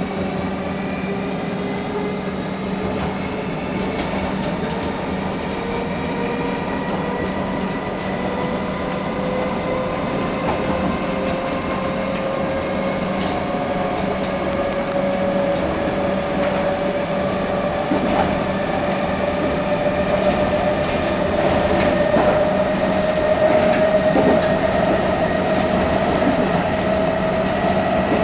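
Comeng electric train heard inside the carriage while under way: a motor whine climbing slowly and steadily in pitch as the train gathers speed, over a steady hum and rolling noise, with scattered light clicks from the wheels on the rails.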